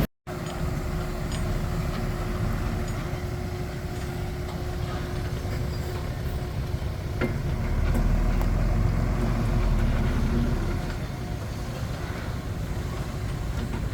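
Komatsu D21P bulldozer's diesel engine running steadily with a low rumble, swelling a little louder for a couple of seconds in the middle.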